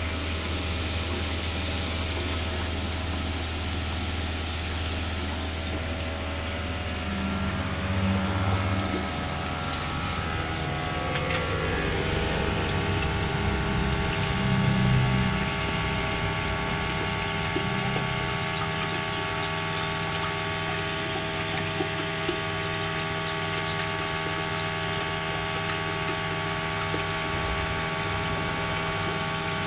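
Steady hum of a running motor, made of many even tones. Its low note changes a little about a third of the way in.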